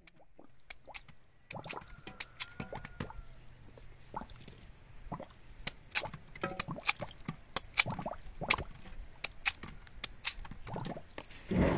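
A chayote root (camote) being cut up with a knife: irregular sharp clicks and knocks, one to three a second, as the blade cuts through and the pieces drop into a clay pot. A louder, duller knock comes near the end.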